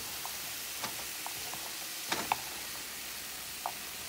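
Chopped carrots, celery and green onions sautéing in a pan: a steady, soft sizzle, with a few light clicks here and there.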